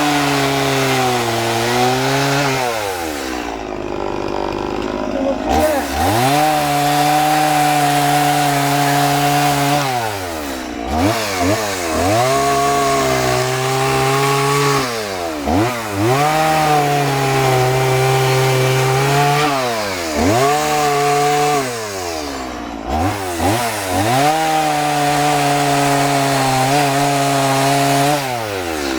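Two-stroke chainsaw with a 12-inch bar, running at full throttle and cutting into a large wooden log while roughing out a carving. The engine note is held high for a few seconds at a time, then drops off and climbs back up, several times over.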